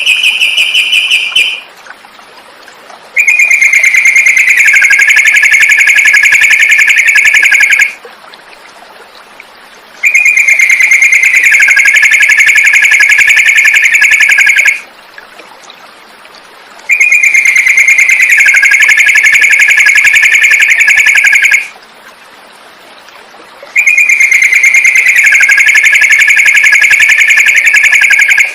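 Looped recording of a trucukan (yellow-vented bulbul) song used as tutor audio for cage birds: a dense, rapid trill about five seconds long that dips slightly in pitch partway through. It is repeated identically four times with gaps of about two seconds.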